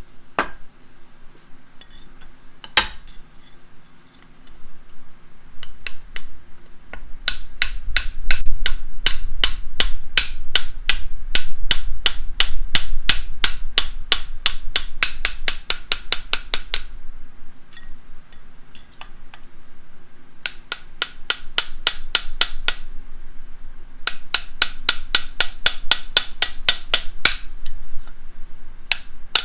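Hammer striking metal on a vintage Reed bench vise, driving out the large nut sleeve held inside: a few single blows, then long runs of quick, even taps at about four a second with short pauses between.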